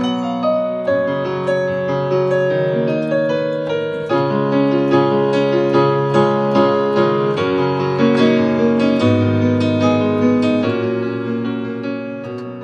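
Piano sound played on a MIDI keyboard controller, a slow run of chords with new notes struck about twice a second and left to ring, dying away near the end.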